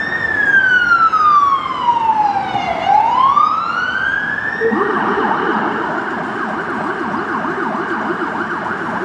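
Police car siren on a code 3 response. It sounds one slow wail, falling in pitch over about three seconds and rising again, then about halfway switches to a rapid yelp that carries on.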